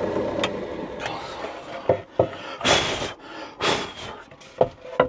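Plywood board handled on a pillar drill's table after drilling: the drill's sound fading out, then several sharp wooden knocks and two short scrapes.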